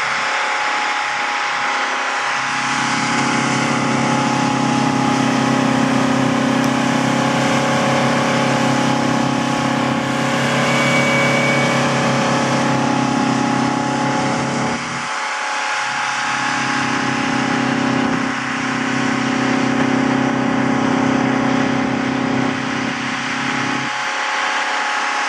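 Heavy truck engines running steadily at high speed to drive the water-cannon pumps, under a continuous hiss of the water jets spraying. The engine hum drops out briefly about fifteen seconds in and again near the end.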